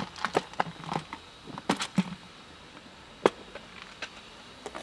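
Plastic food container and its snap-on lid being handled, giving a string of sharp clicks and knocks. Most come in the first two seconds, with one louder click a little after three seconds.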